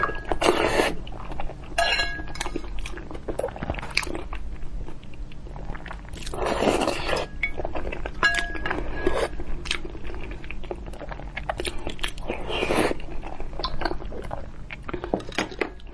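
Close-miked eating: spicy broth slurped from a wooden spoon in three long sips, near the start, about halfway and near the end, with chewing between. Chopsticks and spoon clink against the stone bowl, with a short ringing clink about two seconds in and again about eight seconds in.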